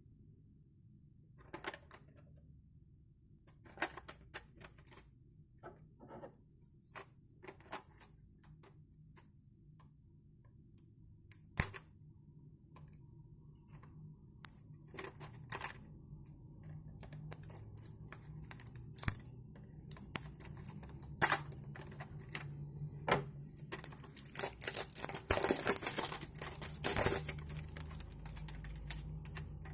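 A clear plastic case of floss picks is handled, giving scattered clicks and taps, while a knife blade scrapes along its edge. The scraping and crackling grows dense near the end.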